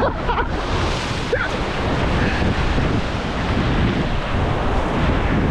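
Surf washing and breaking over a rock ledge, a steady rushing noise, with wind buffeting the microphone.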